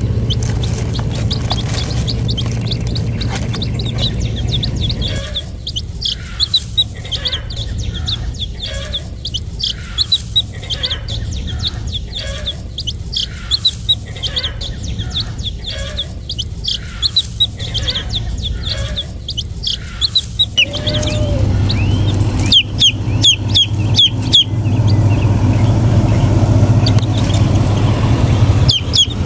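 Baby chicks peeping: many short, high, downward-sliding notes, thickest toward the end. Through the middle, a lower sound pulses regularly about once or twice a second.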